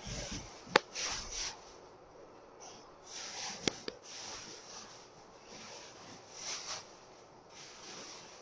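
Plastic bags of garments rustling as they are handled. Two sharp clicks, about a second in and again near the middle, are the loudest sounds.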